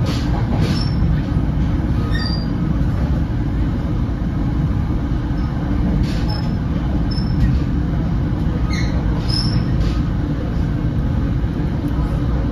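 Steady, loud rumble of an NJ Transit Comet V passenger coach running at speed, heard from inside the cabin. A few short, high-pitched squeals cut in about a second in, at about two seconds, around six to seven seconds and around nine seconds.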